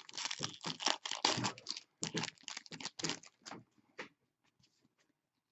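Trading cards being handled and slid one behind another: a quick run of dry clicks and rustles for about four seconds, then stopping.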